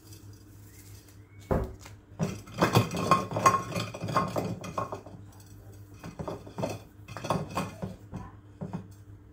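Frozen corn-on-the-cob pieces knocking and clattering against a glass dish as they are turned over by hand to coat them in seasoning. A single sharp knock comes about one and a half seconds in, then a dense run of clatter for a few seconds, then scattered knocks.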